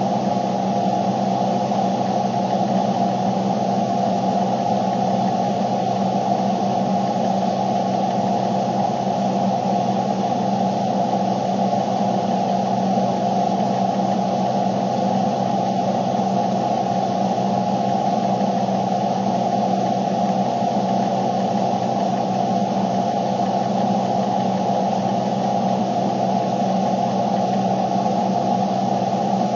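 Steady cabin noise inside a car: an even hum over a noisy rumble that does not change.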